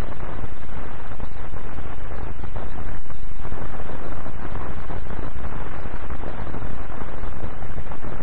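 Loud steady hiss and crackle of a worn 1940s optical film soundtrack, with no other sound standing out.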